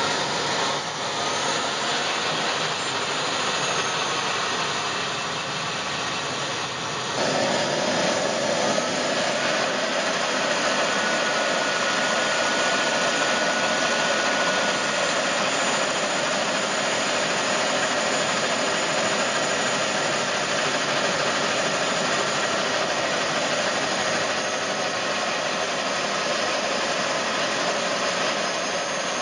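Small model gas turbine of a scale GT3 locomotive running steadily with a loud rushing whine; about seven seconds in it steps up and grows louder.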